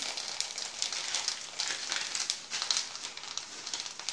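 Cumin and fennel seeds frying in hot oil in an aluminium kadai: a steady sizzle with dense, rapid crackling.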